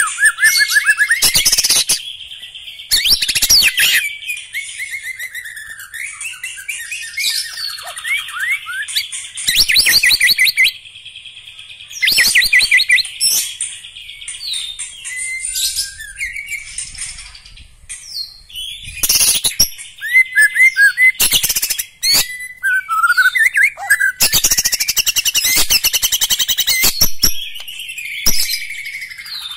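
White-rumped shama (murai batu) singing: loud bursts of rapidly repeated rattling notes alternate with varied whistled phrases and slurred glides, over a steady high background buzz.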